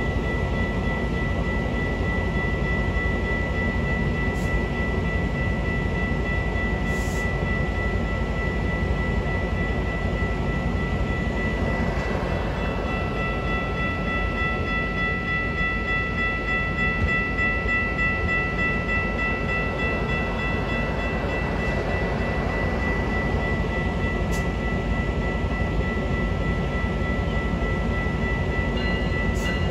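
Metra bilevel commuter train cars rolling past at close range: a steady rumble and clatter of wheels on rail. A steady high ringing tone runs throughout, and a second, lower tone joins for several seconds in the middle.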